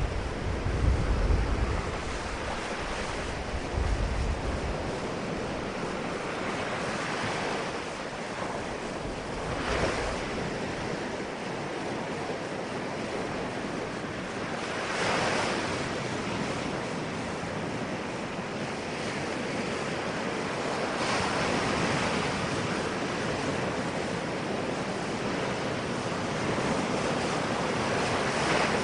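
Ocean surf: waves breaking and washing up a shore, a steady rush that swells every few seconds, with a deeper rumble in the first few seconds.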